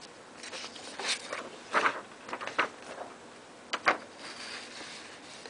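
Sheets of notebook paper being handled and shifted, giving a few short rustles and scrapes.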